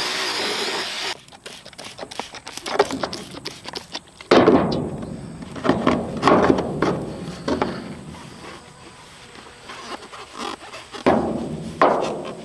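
A power tool running stops abruptly about a second in. It is followed by irregular knocks, clicks and clatter from hand work on parts, with heavier thumps about four seconds in and again near the end.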